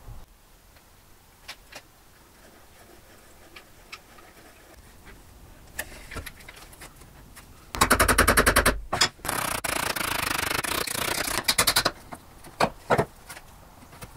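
Hammer striking a mortise chisel in a very fast, even run of sharp blows, chopping a mortise in a walnut table leg, about eight seconds in. About three seconds of dense chopping noise follow, then a few single taps.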